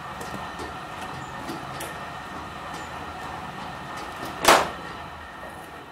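Axe-sharpening grindstone machine running with a steady hum and a few steady tones, slowly getting quieter. A brief loud burst of noise about four and a half seconds in.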